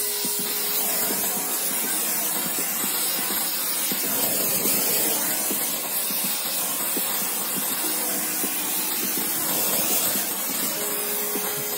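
Brazing torch flame hissing steadily as it heats a copper refrigerant line joint on a compressor.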